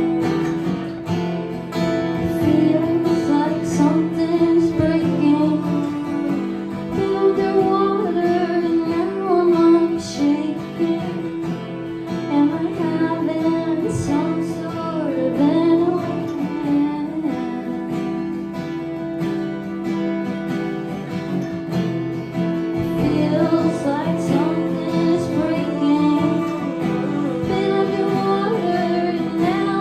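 Live acoustic guitar being strummed while a woman sings a slow, melodic line over it.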